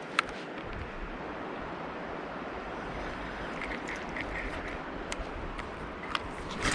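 Steady rushing of a mountain stream, with a few sharp clicks over it.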